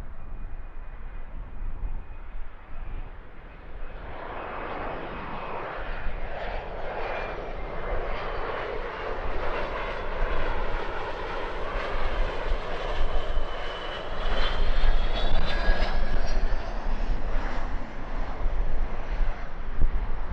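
Bombardier Challenger 350 business jet's twin turbofans, growing louder as the jet comes in to land, with a high whine that rises in pitch about two-thirds of the way through. Wind buffets the microphone with a low rumble.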